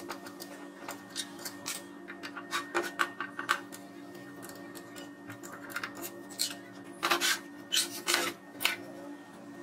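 A thin steel tool scraping and clicking irregularly against the metal inside a chop saw's motor housing, around the stator. A few louder knocks about seven to eight and a half seconds in as the cast housing is handled on the bench.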